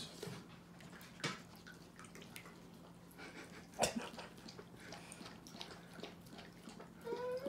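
Huskies lapping dog beer from plastic cups: quick, irregular wet lapping and dripping, with a couple of louder clicks against the cups.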